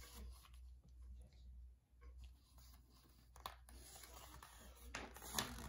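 Faint rustling of picture-book paper pages being handled, with two sharper rustles later on as the page is turned, over a low steady room hum.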